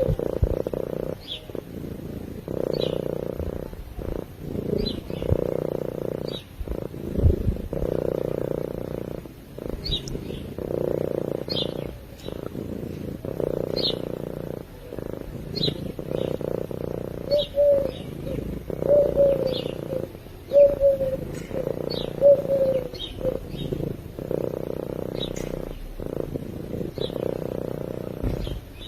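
Sleeping domestic cat purring, swelling and fading with each breath, roughly every one and a half to two seconds. Small birds chirp now and then in the background.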